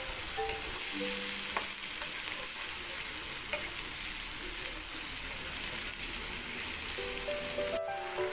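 Long beans and chilies stir-frying in hot oil in a nonstick frying pan: a steady sizzle, with a wooden spatula stirring and scraping the pan. The sizzle breaks off briefly near the end.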